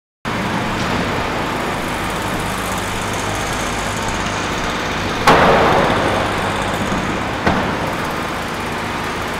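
Skateboard wheels rolling on a halfpipe ramp with a steady rumble, and a sharp board clack about five seconds in that rings briefly, then a lighter knock two seconds later.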